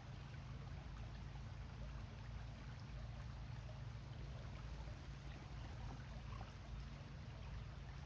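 Small rocky stream flowing, a steady faint rush of water over stones with a constant low rumble underneath.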